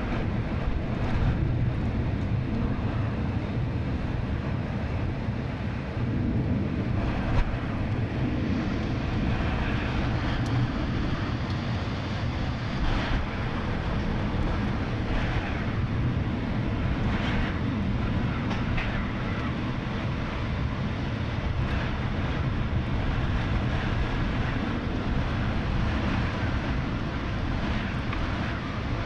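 Heavy thunderstorm: a steady wash of rain and wind over a continuous low rumble, with no single sharp thunderclap.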